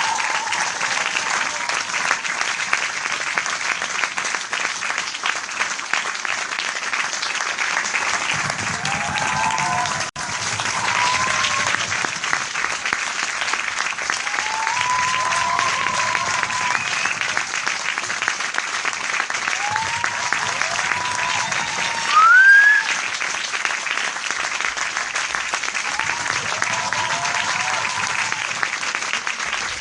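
Large crowd applauding steadily in dense clapping, with voices calling out above it every few seconds. One short, loud rising call comes about two-thirds of the way through, and the clapping breaks off for an instant about ten seconds in.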